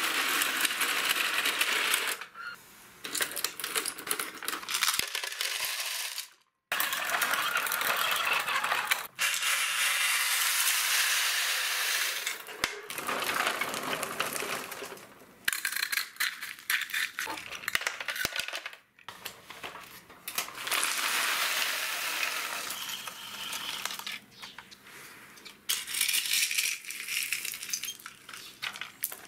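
Small gravel stones clattering and rattling against hard plastic toy trucks and an excavator bucket as they are scooped and poured. The clatter comes in long dense stretches with brief pauses.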